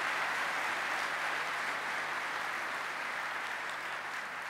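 Audience applauding, steady clapping that begins to die down near the end.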